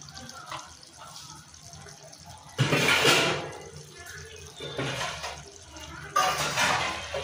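Thick fish curry simmering in an aluminium wok over a gas flame, its gravy bubbling, with two louder spells of bubbling, one a third of the way in and one near the end.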